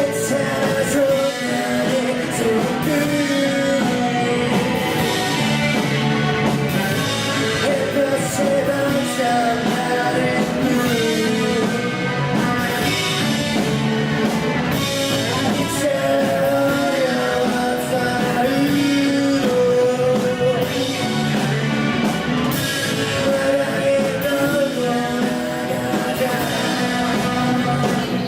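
Live rock band playing: drums with cymbals and guitars, with a melody line carried over them.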